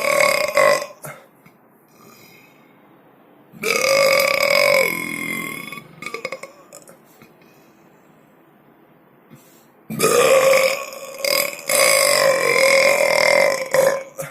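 Loud, drawn-out burps from a person, each held on a fairly steady pitch. One ends just after the start, a second lasts about two seconds a few seconds in, and a long one of about four seconds comes near the end.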